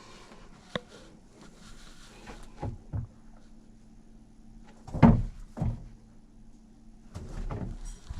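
A handful of scattered knocks and thuds, a double one about five seconds in the loudest, with a low steady hum underneath.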